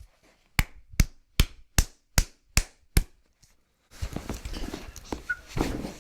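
Seven sharp cracking clicks in quick, even succession, about two and a half a second. From about four seconds in they give way to rustling and movement noise over a louder background hiss.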